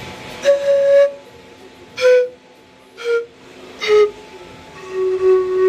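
Kuna gammu burwi cane flute playing five breathy notes that step downward in pitch, the first and last held longer than the three short ones between.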